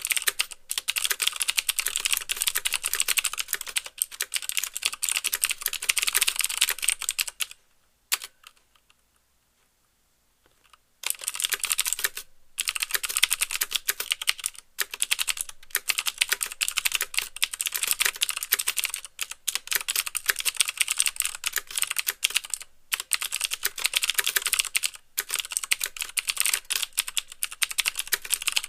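Fast typing on a mechanical keyboard with clicky Cherry MX Blue switches: a dense run of sharp clicks with the clack of keys bottoming out. The typing stops for about three seconds about a third of the way in, then resumes.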